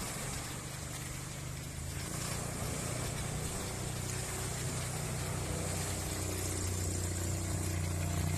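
Engine of a homemade wooden jet ski running at speed across choppy water, a steady drone that grows louder as the craft comes closer, over wind and water noise.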